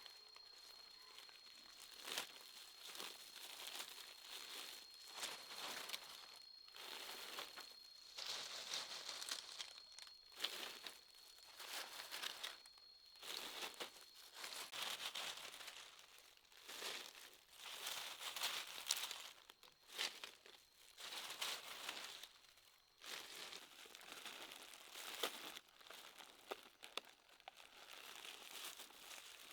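Irregular crinkling and rustling handling noise in short bursts, one or two a second. A faint steady high whine runs through the first half and stops about halfway.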